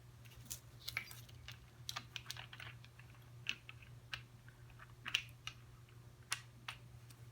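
Irregular light clicks and clinks of small metal parts being handled: transmission gears from a Suzuki RM125 engine's gearbox, being looked over for damage.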